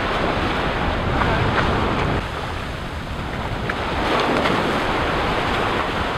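Surf washing in and out at the water's edge, with wind rumbling on the microphone.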